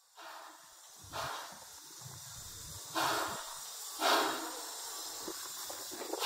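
Steam locomotive exhaust: a few slow, hissing chuffs, about one to two seconds apart, over a low rumble, as from a locomotive working at low speed.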